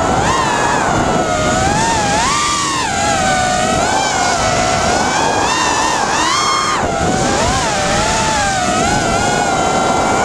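FPV racing quadcopter's Cobra 2204 2300kv brushless motors spinning 5040 tri-blade props, recorded on the onboard camera: a buzzing whine whose pitch swoops up and down with the throttle, climbing sharply about six seconds in and then dropping back, over a rush of wind noise.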